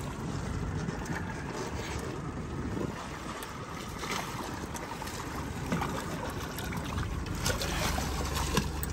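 Wind and water washing around a small boat, with splashing near the end as a hooked roosterfish thrashes at the surface beside the hull.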